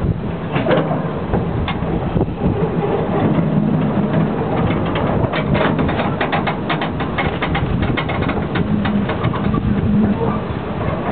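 Narrow-gauge light railway train running, with a steady low rumble and many quick clattering knocks from wheels and couplings, thickest in the middle.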